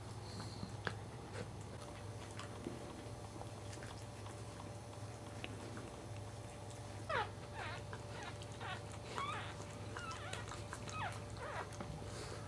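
Newborn Cairn Terrier puppies squeaking and whimpering in short, high-pitched cries that rise and fall, with one near the start and a quick run of them from about seven seconds in, over a steady low hum.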